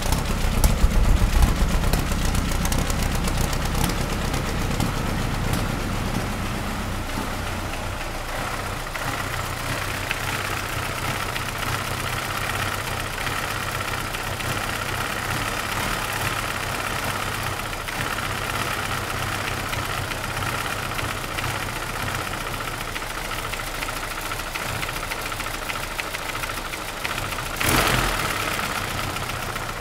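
10-litre Hall-Scott aero engine running after its rebuild, louder and deeper for the first few seconds, then settling to a steady run. A short sharp burst of sound near the end.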